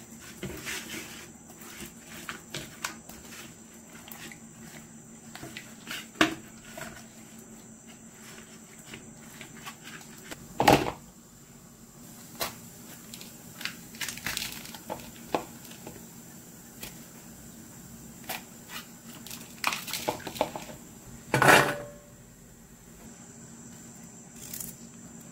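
Kitchen food-prep handling: hands working raw chicken in a steel bowl and a knife trimming vegetables, giving scattered light clicks and knocks, with two sharp, much louder knocks about halfway through and near the end. A steady faint high-pitched hum runs underneath.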